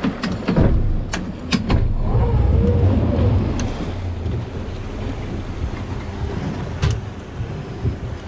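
A small boat's motor running low, its rumble swelling for a couple of seconds early on, with several sharp knocks in the first two seconds and one more near the end.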